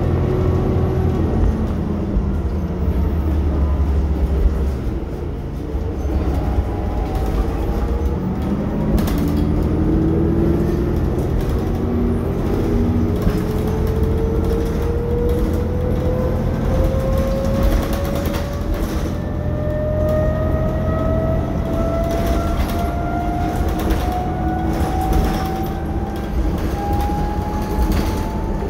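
Inside a 2011 New Flyer DE60LF diesel-electric hybrid articulated bus under way: a steady low engine and road rumble with rattles and knocks from the body. Over it the hybrid drive's whine sinks and fades in the first few seconds, then from about nine seconds in climbs steadily in pitch for nearly twenty seconds as the bus gathers speed.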